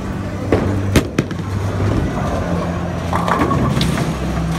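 Bowling alley noise: a steady low rumble of balls rolling down the lanes, with two sharp knocks about half a second and a second in.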